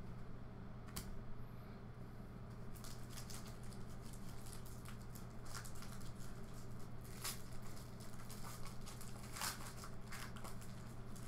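Foil trading-card pack being torn open and crinkled by hand: scattered crackles and rustles, over a steady low hum.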